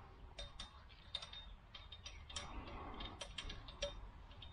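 Light metallic clicks and taps in a quick, irregular series, from a rod install tool working inside a Suzuki DR650 fork tube to seat a drop-in damper cartridge onto the damper rod head.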